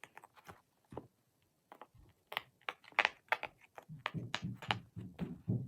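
Irregular taps, rustles and clicks of hands handling a puppet fidget toy close to the microphone, sparse at first and busier from about two seconds in, with some dull thumps.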